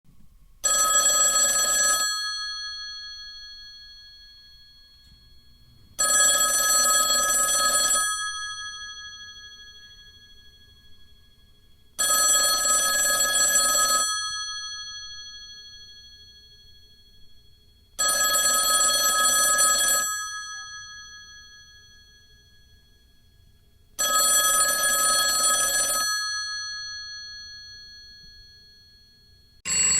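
Telephone bell ringing in the on-off cadence of an incoming call: five rings about two seconds long, one every six seconds, the bells ringing on and fading after each. Just before the end a different, shorter sound begins.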